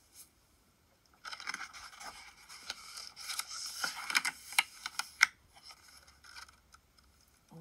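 Paper pages of a picture book being turned and pressed flat by hand: a rustle of paper with sharp crackles and ticks that starts about a second in, is loudest in the middle, and fades off about a second before the end.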